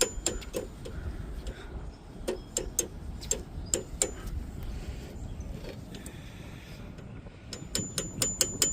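Light metal-on-metal taps on the back of a brake pad retaining pin, driving it through a Jaguar XJ-S front caliper. The taps come in short runs, with a quicker run of about three a second near the end.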